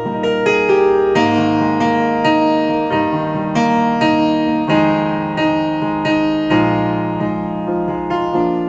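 Piano introduction to a pop ballad: sustained keyboard chords struck in a steady, unhurried rhythm.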